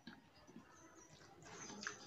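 Faint eating sounds from a person chewing a mouthful of rice and egg curry, with small wet mouth clicks and smacks and a sharper click near the end.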